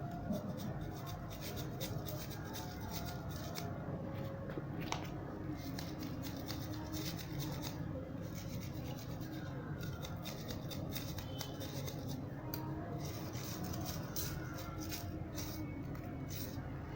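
Mesh scrubber packed with red powder being squeezed and rubbed, a continuous run of dry, scratchy crunches and rubbing.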